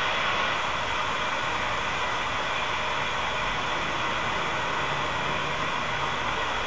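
Waterfall and stream cascading over rock: a steady rushing noise that holds at one level.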